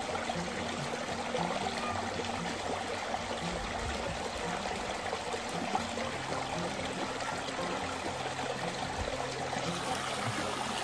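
Small river flowing steadily: a constant even rush of running water.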